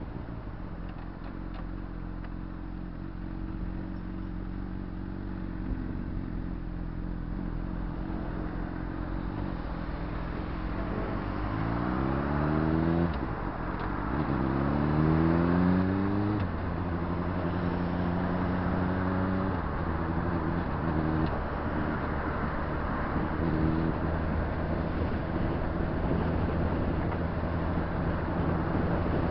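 Honda CBR600RR's inline-four engine heard from the rider's seat, running steadily at first, then revving up through one gear about eleven seconds in, a shift, and up through the next, before settling to a steady cruise over a rush of wind.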